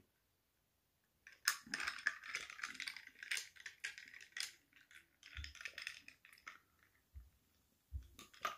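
Ice cubes rattling and clinking against a tall drinking glass as a cocktail is stirred with a straw: a long run of quick clinks starting about a second in, then a shorter run, with a few single clicks near the end.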